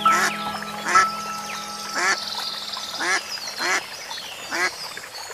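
Nasal, quack-like bird calls, about seven in a row at uneven spacing, over background music with held tones that fade out about two seconds in.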